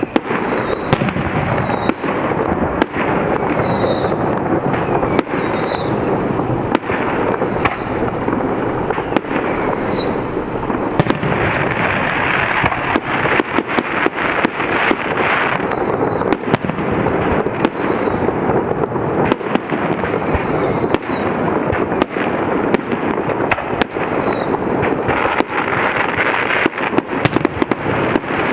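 Aerial fireworks display: a continuous rumble of shell bursts and sharp bangs, with short whistles that fall slightly in pitch every second or two. The bangs come thicker and faster near the end.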